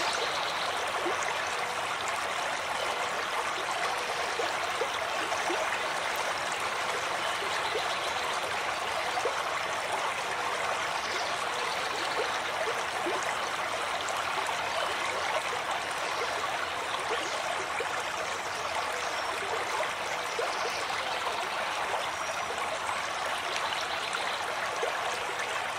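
Steady rushing and splashing of river water churned by swimmers' strokes.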